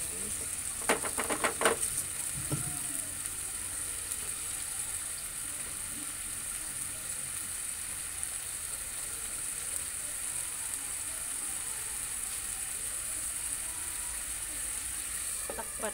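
Beef cubes sizzling in a frying pan, a steady high hiss. A quick rattle of clicks comes about a second in.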